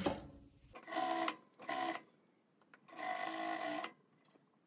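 Sewing machine stitching through plush fur fabric in short bursts. A long run stops right at the start, then the machine runs briefly three times: about a second in, again just after, and for about a second near the three-second mark.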